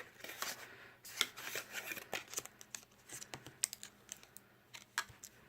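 Paper flaps of a lift-the-flap board book being lifted and folded by hand: faint rustling with scattered small clicks and taps.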